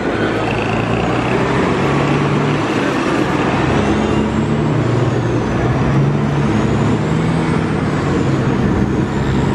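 Motor vehicle running in slow traffic, heard from the open back of the vehicle: a loud, steady mix of engine hum and road and wind noise. The engine tone shifts in pitch a few times.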